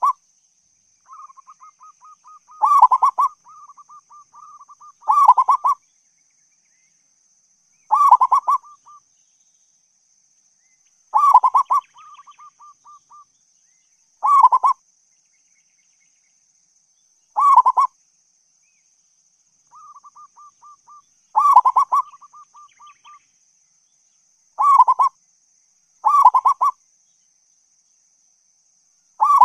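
Zebra dove (perkutut) cooing: loud, rolling coo phrases about every three seconds, about ten in all, some joined by soft, rapid trilled notes. A faint, steady high-pitched tone runs underneath.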